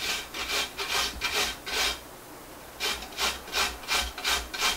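A peeled raw potato being grated on a stainless steel box grater: rhythmic scraping strokes, about three a second, with a pause of about a second near the middle.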